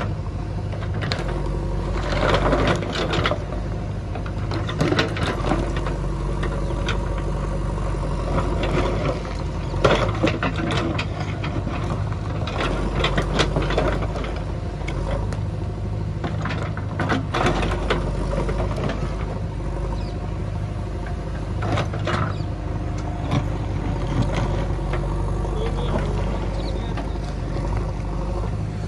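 JCB 3DX backhoe loader's diesel engine running steadily under load while the backhoe bucket digs, with scattered knocks and scrapes of the bucket working stony ground.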